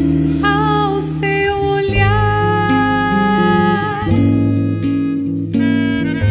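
Instrumental passage of a small live band: a melodica plays a melody of long held notes from about half a second in until around four seconds, over acoustic guitar chords and bass.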